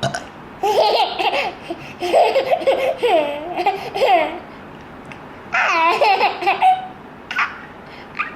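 Small child laughing hard in three long bouts of high-pitched giggles, with short pauses between them.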